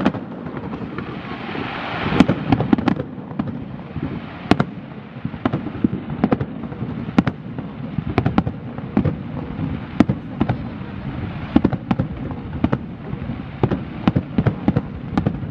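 Fireworks display: aerial shells bursting in a rapid, irregular series of sharp bangs and crackles, several a second, over a continuous low background of the barrage, with a brief swell about two seconds in.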